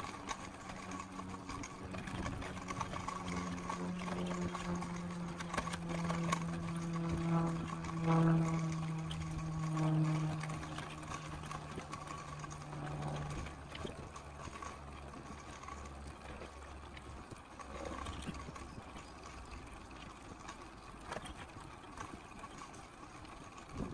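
A steady motor hum that slowly drops in pitch, loudest about eight to ten seconds in and fading out after about thirteen seconds, followed by a fainter, lower hum.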